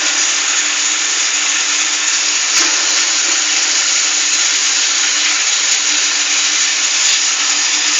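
Oil palm empty fruit bunch shredder running with a steady loud hum and grinding noise, with a few brief knocks.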